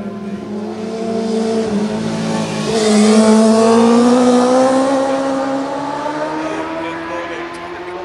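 Racing motorcycle engine at full throttle as the bike passes close by. Its note climbs steadily as it accelerates, is loudest about three seconds in, then fades as it pulls away.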